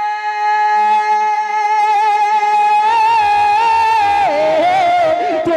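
A man singing a naat unaccompanied into a microphone, holding one long steady note, then wavering with vibrato and sliding down in pitch in an ornamented run in the second half.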